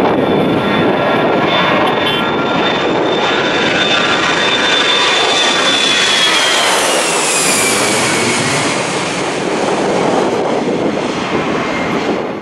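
Twin-engine jet airliner at takeoff power, lifting off and passing low overhead: a loud, steady jet roar with a high whine that drops in pitch as it goes over, about six to eight seconds in.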